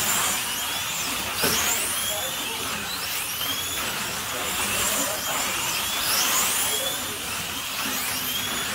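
Slot cars' small electric motors whining as they lap a multi-lane track, the pitch sweeping up and down as each car passes, about once a second or so. A sharp click about a second and a half in.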